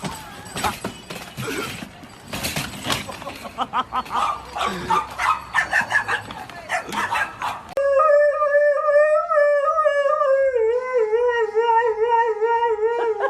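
A dog barking and yipping excitedly in quick bursts, then, from about eight seconds in, a dog giving one long wavering howl that slides lower in pitch.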